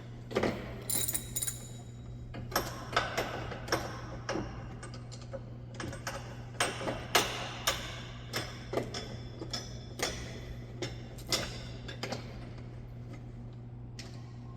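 Irregular metallic clicks and clinks of hand tools and bolt hardware as a bumper bolt is worked in, a few a second at most, over a steady low hum.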